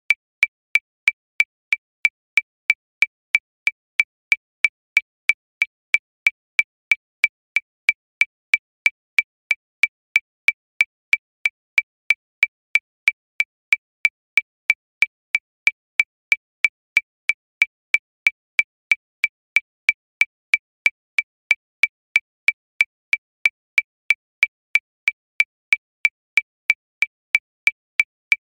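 Metronome clicking at 185 beats per minute: an even series of short, high-pitched clicks, about three a second, all alike.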